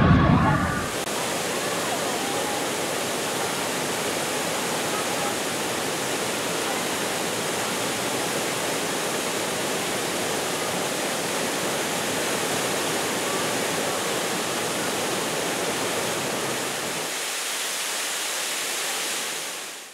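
Waterfall rushing steadily, an even hiss of falling water. Its deep part drops away near the end, and then it fades out.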